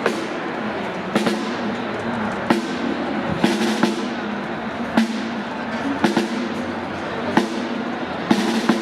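Music with sustained tones, broken by sharp, echoing bangs at uneven intervals, roughly one a second.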